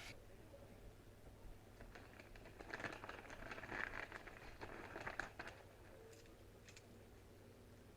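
Faint handling noise: the rustling and crinkling of a case and packaging being opened to take out copper dowsing rods, with a couple of light clicks near the end.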